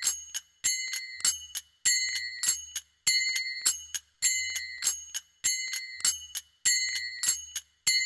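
Manjira, a pair of small Indian hand cymbals, playing a looped rhythm at 100 bpm. A loud ringing strike about every 1.2 seconds is followed by a few shorter, quickly damped clicks, and the pattern repeats evenly.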